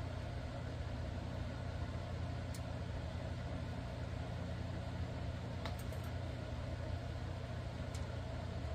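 A steady low machine hum, with a few faint clicks of small metal reel parts being handled.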